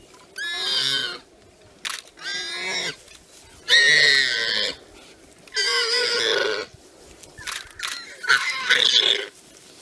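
Warthog squealing in distress as a leopard bites it: a string of high, wavering squeals, four long ones with the loudest about four seconds in, then a quicker run of shorter squeals near the end.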